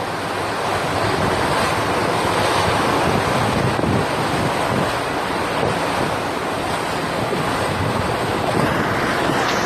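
Wind blowing hard across the microphone over open sea, a steady rushing noise with the wash of waves under it.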